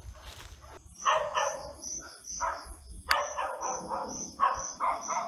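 A dog barking repeatedly in short clusters, over a steady high chirp that pulses about twice a second. A single sharp click comes about three seconds in.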